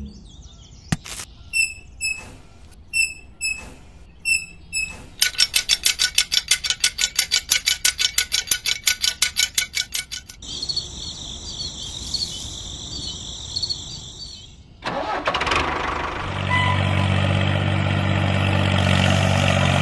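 Tractor engine sounds: a few clicks, then rapid even cranking about five times a second, a steady high whine, and from about three-quarters of the way in a diesel-like engine running steadily with a low hum.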